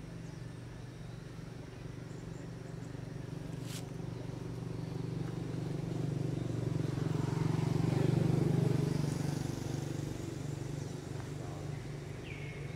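Low hum of a passing motor vehicle's engine, growing louder to a peak about two thirds of the way through and then fading. A single sharp click comes about four seconds in.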